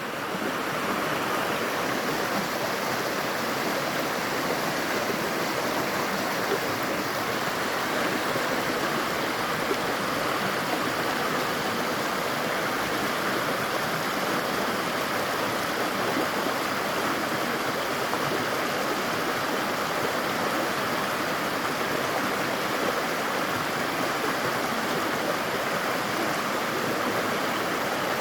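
River water running in a steady, unbroken rush.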